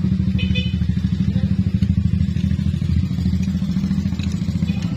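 A motorcycle engine idling steadily with an even, rapid pulse, and a few light metallic ticks from a wrench about half a second in.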